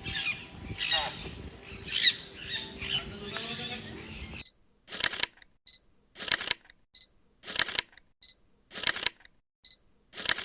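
Birds squawking and calling in an aviary with some voices, cut off abruptly about four and a half seconds in. Then a camera shutter sound repeats about every 1.3 seconds, each a short burst with a small click between.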